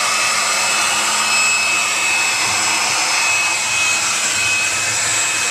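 Hair dryer running steadily: a continuous rush of blown air with a thin, high, steady whine over it.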